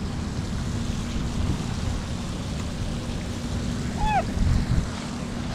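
Steady rushing noise of wind buffeting the microphone together with the splash of a large fountain, with one short falling call about four seconds in.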